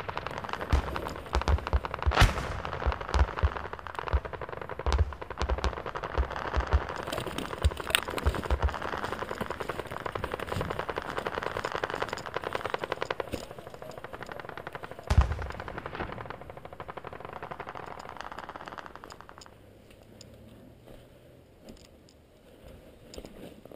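Airsoft replicas firing in rapid bursts of clicks, with one louder sharp crack about fifteen seconds in. The firing dies down over the last few seconds.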